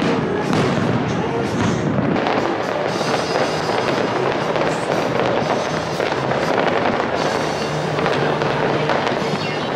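Fireworks display: aerial shells bursting in dense crackling and repeated bangs, with music playing alongside.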